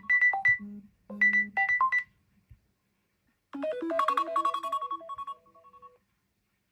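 Smartphone ringtone: a quick melody of short notes that stops about two seconds in. After a pause, another melodic phrase starts at about three and a half seconds and fades out by about six seconds.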